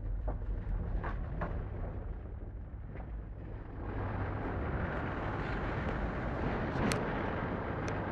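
Steady low rumble inside an electric suburban train at a stop, with a few light clicks. About four seconds in it gives way to a louder, even hiss of station noise as the platform is reached.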